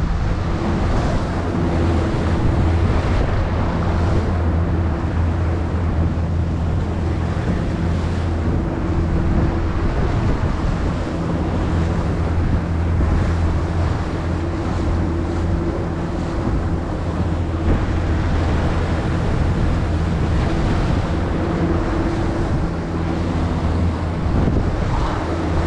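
Boat underway at speed: a steady low engine hum over rushing water from the hull and wake, with wind buffeting the microphone.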